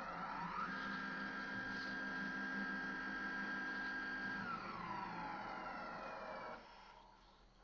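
Planetary-geared stepper motors of a 3D-printed six-axis robot arm making a move: the whine rises in pitch as they speed up, holds one steady pitch for a few seconds, then falls as they slow down. The sound drops away about a second before the end as the arm stops.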